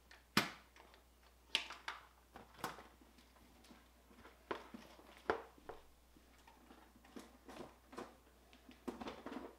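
Scattered clicks and knocks of a Mercury 9.9 EFI outboard's top cowling being unlatched, worked loose and lifted off; the sharpest knock comes about half a second in.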